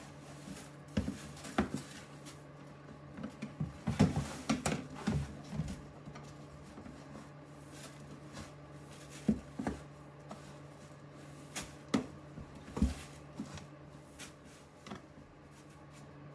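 Wooden spoon stirring and scraping millet grain in a plastic storage tote, with irregular knocks of spoon and tub and the rustle of moving grain, over a steady low hum.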